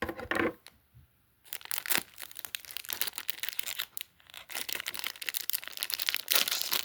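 Plastic packaging crinkling and rustling as it is handled. There is a short quiet gap about a second in, then near-continuous crinkling.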